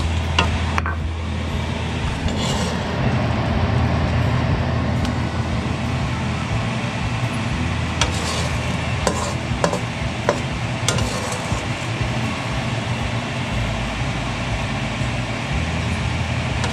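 Rice grains and salt being stirred and scraped around a hot nonstick wok with a wooden spatula, giving a steady dry, scratchy hiss over a low hum. A few sharp ticks come through in the middle.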